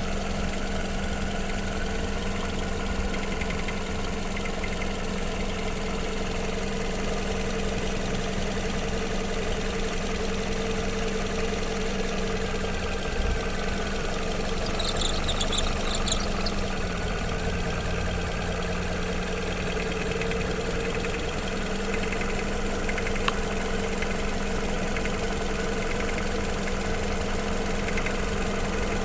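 Toyota Wish's warmed-up 1ZZ-FE 1.8-litre inline-four idling steadily with a clattering rattle that seems to come from the auto belt tensioner pulley, a noise that appears once the coolant is above about 80 °C. The owner suspects the tensioner is not holding enough tension, so the pulley vibrates abnormally. The engine note dips slightly about seventeen seconds in.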